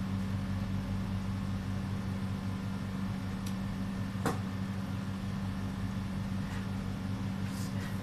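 A steady low hum from a running motor or electrical appliance, with one sharp click about four seconds in.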